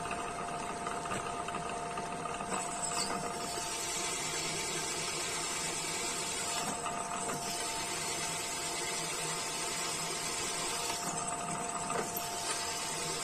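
PM-200 turret milling machine drilling a hole in a steel plate: the 3 HP spindle motor runs with a steady whine, over the hiss of the twist drill cutting the steel.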